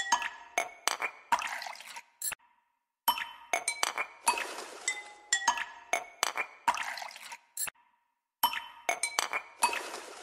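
Background music: a light percussive track of glassy clinks and ringing notes, repeating a phrase of about five seconds with a short pause between repeats.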